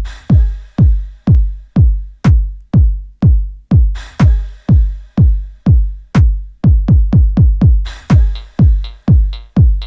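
Electronic dance music played from a vinyl record through an Ortofon Concorde DJ cartridge: a deep, falling kick drum on every beat at about two a second, with a cymbal splash at the start and again about four seconds in. From about six and a half seconds the kicks come more closely packed for a short run, and a buzzing synth note joins near the end.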